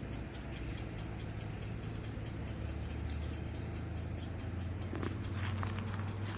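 Lawn mower running with a steady low drone, under a fast, even ticking from a lawn sprinkler.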